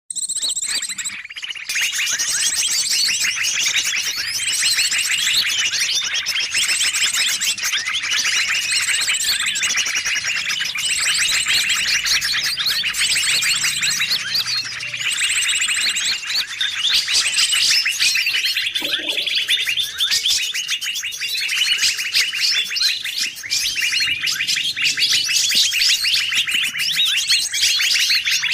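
Bird-lure recording: a dense mix of many small forest songbirds chirping and trilling at once. A high, sharp phrase repeats about every two seconds over continuous rapid twittering.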